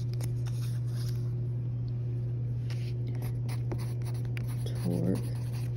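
Pencil scratching on a paper index card, with the rustle of the card being turned over and short ticks of the pencil against the paper, over a steady low hum.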